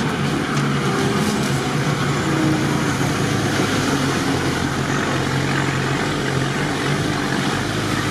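Off-road 4x4's engine running steadily as it drives slowly through muddy water, heard from inside the cab, with a hiss of tyres through the water and mud.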